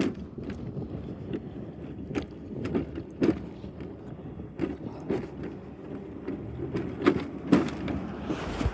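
Car driving, heard from inside the cabin: a steady low road rumble with irregular knocks and clicks.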